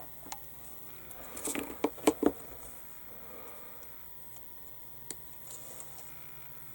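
A few light clicks and taps of plastic model-kit parts and hobby tools being handled, a cluster of them around two seconds in, then one more click a few seconds later.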